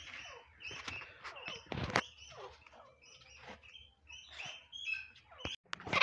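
Francolin giving a string of short, falling chirping calls, irregularly spaced, with a sharp knock about two seconds in.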